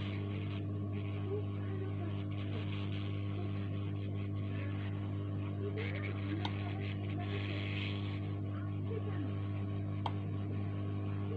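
Steady electrical mains hum with a stack of overtones, and a soft hiss that comes and goes over it every second or two.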